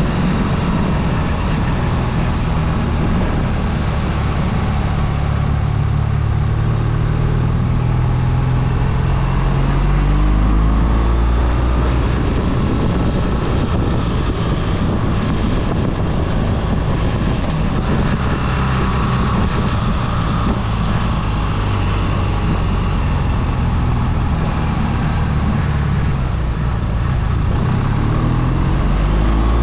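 Vehicle engine pulling up a mountain pass road, its pitch climbing steadily and then dropping back twice as it accelerates and shifts or eases off, over steady road and wind noise.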